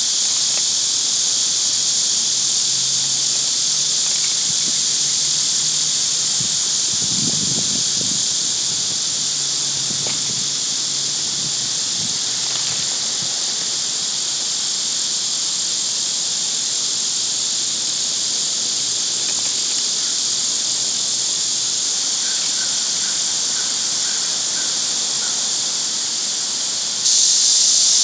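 Steady, high-pitched chorus of summer insects droning without a break, growing suddenly louder near the end.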